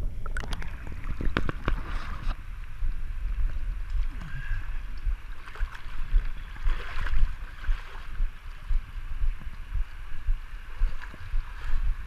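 Water sloshing and splashing around a camera being moved through a shallow pool: first muffled, with a quick run of knocks in the first two seconds while it is under water, then a steady swash at the surface over a low rumble.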